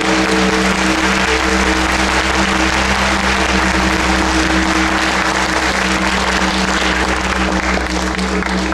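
Audience applauding, with steady low tones held underneath.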